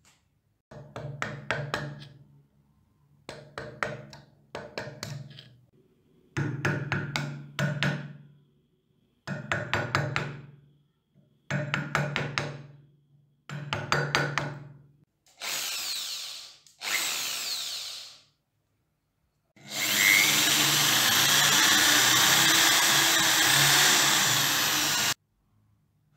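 A hand scraper rasping corrosion off a copper-alloy candlestick held in a vise: short bursts of quick scraping strokes, each fading away. Near the end a power tool whirs briefly twice, then runs steadily for about five seconds, cleaning the metal.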